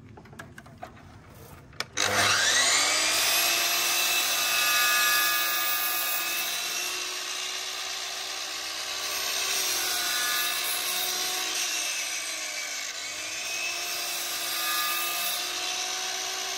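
A DeWalt sliding mitre saw starts about two seconds in, its motor spinning up with a rising whine. It then runs steadily while the blade makes repeated kerf cuts into an MDF skirting board, the pitch dipping a few times as the blade takes the load.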